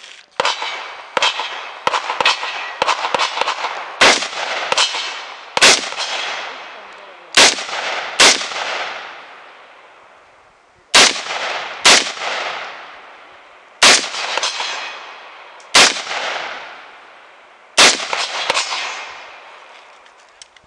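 AR-15 rifle shots fired outdoors from a prone barricade position, each crack trailing off in a long echo. The first few seconds hold a quick run of quieter reports, then the shots come singly, every one to two seconds.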